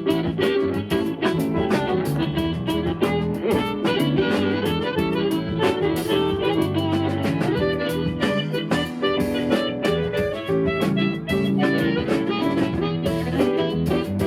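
Live band playing a blues number, an instrumental stretch led by guitar over bass and drums.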